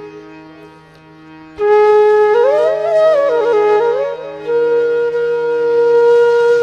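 Background devotional music: a flute-like wind instrument over a steady drone, coming in loudly about a second and a half in, running quickly up and down, then holding a long note.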